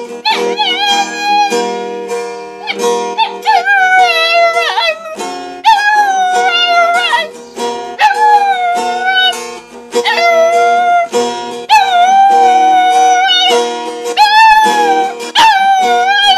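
A dog howling along to a strummed acoustic guitar: a string of long, wavering howls, each lasting a second or two with short breaks between, over steady guitar chords.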